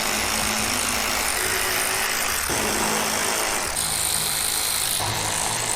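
A steady, even machine-like running noise with a faint hum. It starts and stops abruptly, and its character changes suddenly about two and a half, nearly four, and five seconds in.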